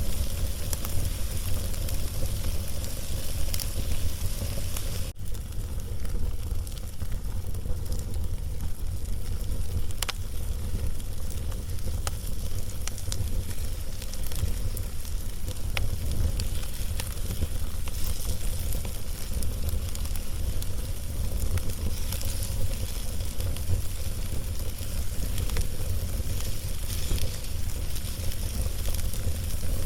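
Wood fire crackling as it burns a log, with scattered small pops and snaps over a steady hiss and a strong, steady low rumble.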